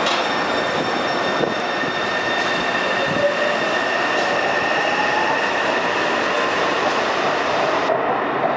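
Taipei Metro C301 train with retrofitted inverter propulsion, running with its traction inverter whining: several steady high tones over rail running noise, with a fainter tone gliding upward in the middle. The inverter has an abnormal noise.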